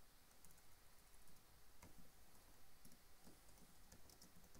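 Faint computer keyboard typing: scattered soft key clicks, irregularly spaced, over quiet room tone.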